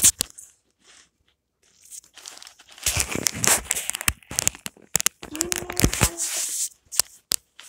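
Plastic rustling and rubbing close to the microphone as a glittery plastic doll case is handled, in two longer bursts with a few sharp clicks near the end.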